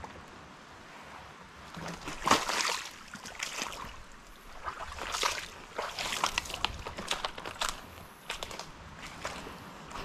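Irregular crackling and rustling in several clusters, about two seconds in and again from about five to eight seconds: footsteps and movement through dry palm fronds and leaf litter on a muddy creek bank.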